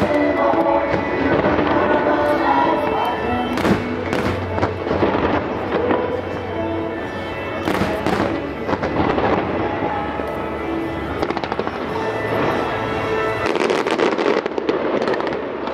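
Fireworks going off over music from a pyromusical show: sharp bangs from bursting aerial shells, loudest about 4 and 8 seconds in, then a rapid run of crackling bangs near the end, with the show's music playing throughout.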